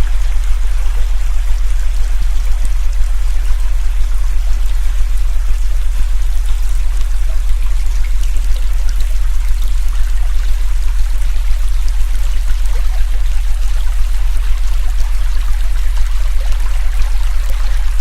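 A steady low tone, well below 100 Hz and the loudest part, held under the continuous rush and trickle of a flowing river.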